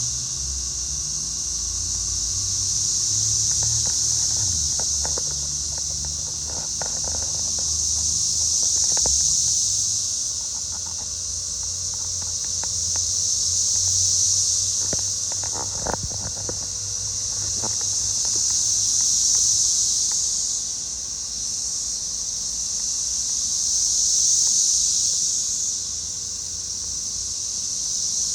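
Chorus of periodical cicadas (13- and 17-year broods) buzzing in a high-pitched hum that swells and fades about every five seconds.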